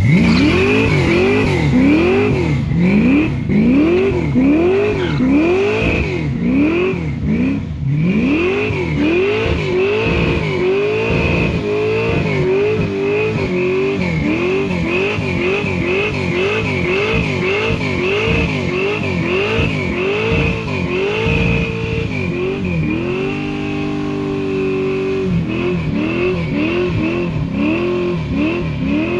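Ford Falcon drag car's V8 revving up and down over and over, a little more than once a second, with a steady high squeal of tyres alongside. About 23 seconds in the revs hold steady for a couple of seconds before the rising and falling resumes.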